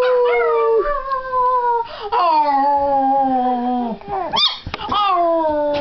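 Maltese dog howling along with a young girl imitating a howl: two voices at once, the dog's higher, in three long drawn-out howls that each slide slowly down in pitch, with a short yelp between the second and third.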